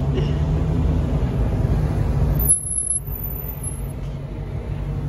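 Car engine running at low speed close by, a steady low rumble, as a car rolls slowly past. The sound drops suddenly in level about two and a half seconds in.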